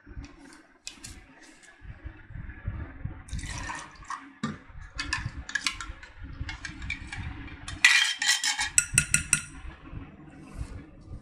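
Lukewarm water poured from a drinking glass into a glass bowl of flour while hands mix it into dough, with a steady low rumble of handling. A run of sharp clicks and clinks is loudest about eight seconds in.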